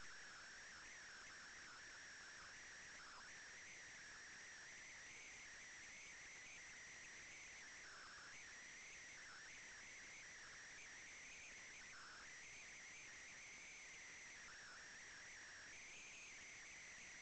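Near silence: only a faint steady electronic hiss from the recording.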